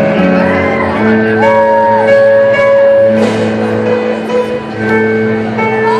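Live amplified music: sustained chords with a held, gently gliding melody line over them.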